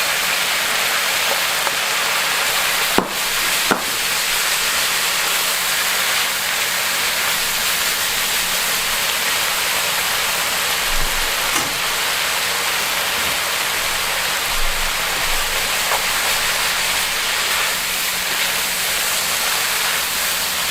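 Chicken, vegetable and egg-noodle stir-fry sizzling steadily in the pan, with two sharp knocks about three seconds in.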